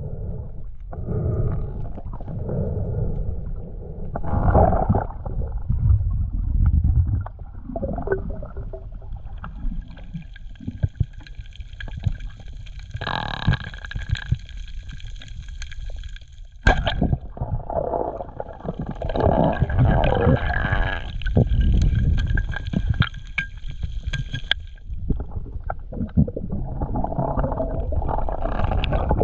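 Muffled underwater water noise: irregular low sloshing and rumbling as a spearfisher swims with the camera submerged. About halfway through comes one sharp crack, the wooden band-powered speargun firing at a purple cod. A faint steady high whine runs through the middle stretch.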